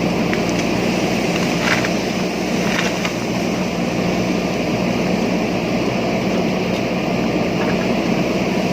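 JCB backhoe loader's diesel engine running steadily under working load, with two short clanks in the first three seconds.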